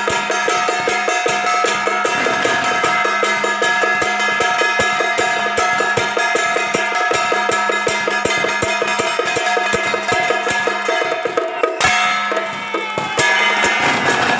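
Procession percussion band beating a fast, even rhythm of about seven strokes a second over a steady ringing metallic tone, with a sharp, loud hit about twelve seconds in.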